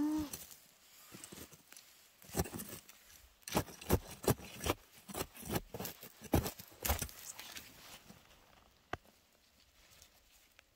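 Dry forest-floor litter crunching and rustling in irregular strokes. The strokes are dense through the middle and thin out to an occasional click near the end.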